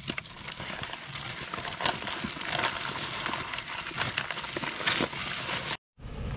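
Dry high-strength concrete mix pouring from a cut paper bag into a post hole: a steady gritty hiss with paper crinkling and a few light clicks. It cuts off suddenly near the end.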